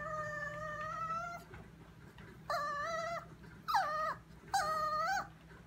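Chihuahua whining: one long, steady high whine, then after a short pause three shorter whines of about half a second each.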